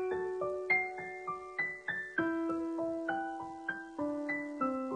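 Background music: a gentle piano piece, single notes struck about three times a second and dying away over held lower notes.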